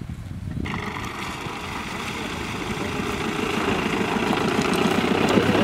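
Mahindra Bolero SUV engine running as the vehicle drives through a shallow stream toward the listener, growing steadily louder. The sound cuts in abruptly under a second in.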